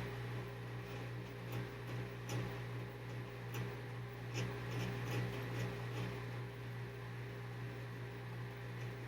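Washing machine running its first rinse: a steady low motor hum, with light ticks and swishes from the drum and water coming irregularly, about once a second.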